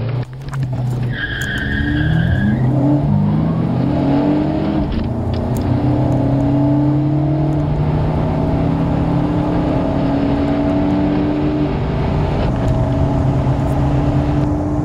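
Car engine sound during a full-throttle acceleration run from a standstill. The revs climb and fall back with each upshift, then hold steadier in the higher gears. A brief high-pitched squeal sounds about a second in.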